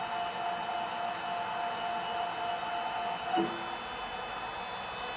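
Stepper motors under test with their driver boards, running with a steady whine of several fixed tones. A little over three seconds in, the whine changes pitch abruptly with a brief swoop, then holds steady again.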